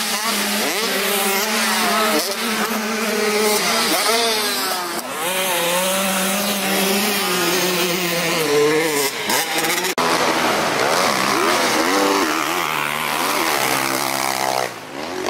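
Motocross dirt bike engines revving up and down over and over, more than one bike at a time, with a sudden brief break about ten seconds in.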